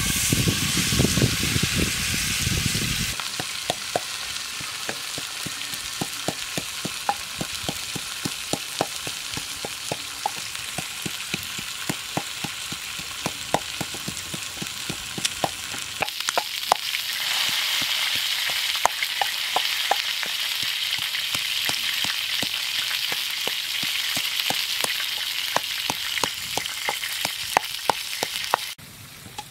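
Wooden pestle pounding in a wooden mortar, crushing chilli and garlic: short knocks, a few a second, over a steady hiss.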